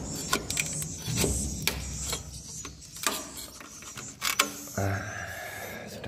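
Scraper blade prying a dry, hardened swiftlet saliva nest off its wooden plank, with irregular sharp cracks and clicks as the brittle nest breaks away. The nest was not sprayed to soften it first, and it is hard and crisp like a cracker.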